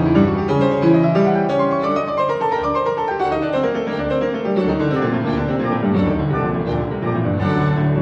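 Instrumental background music led by piano, with many quick notes at a steady level.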